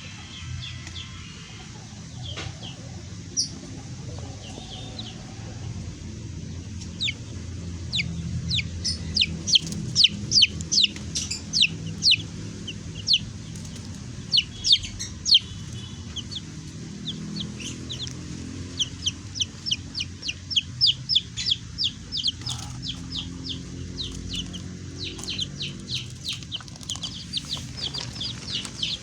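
Baby chicks peeping in many short, high chirps, a few at first and then a busy stream of them from about seven seconds in, over a low steady background.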